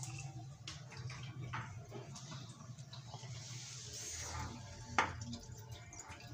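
Faint steady running of tap water into a stainless-steel kitchen sink, with a few sharp knocks of handling, the loudest about five seconds in.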